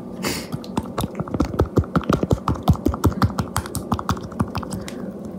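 A quick, irregular run of wet clicks and squelches, several a second, from a cheese stick being jabbed and stirred in sauce in a plastic cup.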